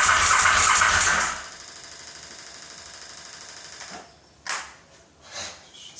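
KTM 950 Supermoto's V-twin engine cranking over on the electric starter with a rhythmic churning, not firing even on starting fluid; the cranking stops about a second in. A fainter steady hum follows, then a couple of short clicks near the end.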